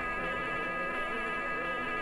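A steady buzzing drone of many held tones, unchanging throughout.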